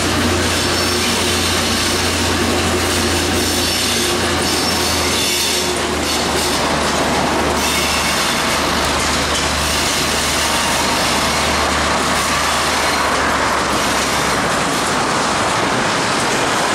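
KiwiRail DC-class diesel-electric locomotive, with its EMD 12-645 two-stroke diesel, running as it hauls a container freight train: a loud, steady low drone over wheel and rail noise from the wagons. Heard from a car pacing alongside, with road and wind noise mixed in; the low drone eases near the end.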